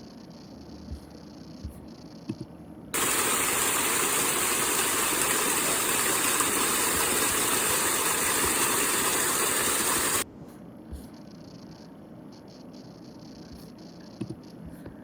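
Rushing river water, a steady loud rush that starts abruptly about three seconds in and cuts off suddenly about seven seconds later.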